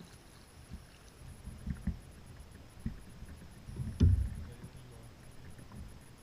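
Knocks and bumps on a plastic kayak's hull: a few soft thumps, then one louder knock about four seconds in.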